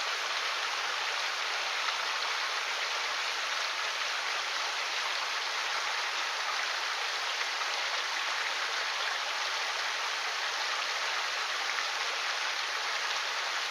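Mountain stream's current rushing steadily.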